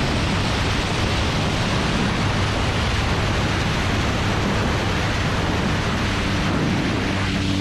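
Wind rushing over the microphone of a wing-mounted action camera on a radio-controlled Texan model plane during a fast dive and low pass, a steady, loud rushing noise that covers the engine.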